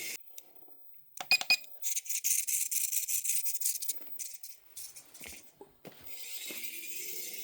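A 1/64-scale micro RC car's tiny electric motor and gears buzzing in a short run of about two seconds, with rattling clicks. Scattered clicks and knocks follow.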